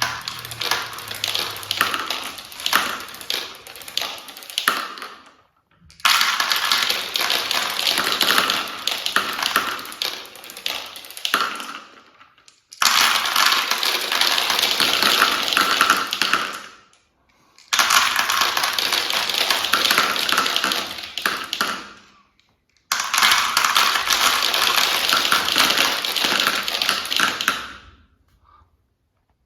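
Marbles rolling and clattering down a marble run track, a dense rattle of many small clicks. It comes in five stretches of four to six seconds, each starting and stopping abruptly with a short silence between.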